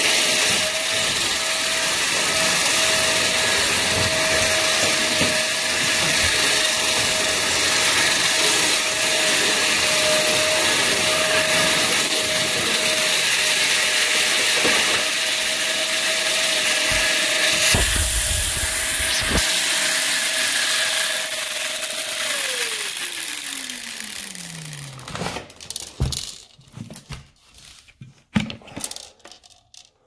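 Upright bagless vacuum cleaner running with a steady motor whine, then switched off about three-quarters of the way through, its pitch falling as the motor spins down. A few scattered clicks and knocks follow.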